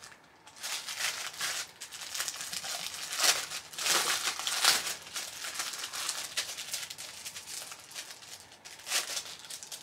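Clear plastic packaging bag crinkling and rustling as a small zipper pouch is worked out of it by hand, in irregular crackles that are loudest about three to five seconds in.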